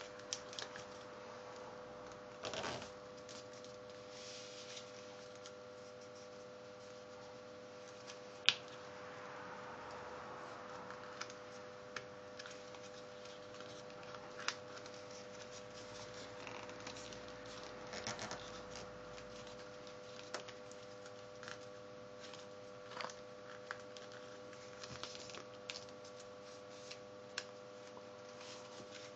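A strip of paper being folded and creased by hand on a wooden table: soft rustling and scattered crisp clicks, with one sharper click a few seconds in, over a faint steady hum.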